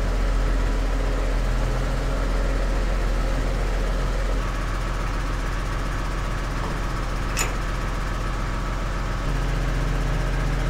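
Case IH Puma 180 tractor's six-cylinder diesel engine idling steadily, its note changing slightly about four seconds in and again about nine seconds in. A single sharp click about seven seconds in.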